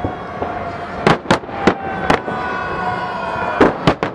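Aerial fireworks shells bursting overhead: about six sharp bangs at uneven intervals over a continuous background rumble of the display.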